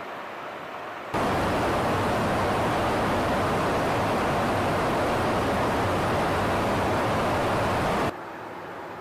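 Steady rushing noise of airflow and engines heard aboard a KC-135 Stratotanker in flight. It jumps sharply louder about a second in, holds level, and drops back abruptly about a second before the end.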